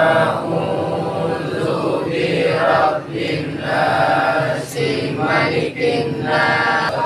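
Men's voices chanting an Arabic Islamic prayer together in drawn-out phrases, with brief pauses between phrases.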